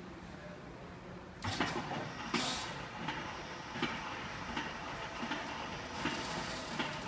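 Leblond Makino Servo Shift engine lathe starting up about a second and a half in, then running under power: a steady mechanical whir from the headstock with a regular clack roughly every three-quarters of a second.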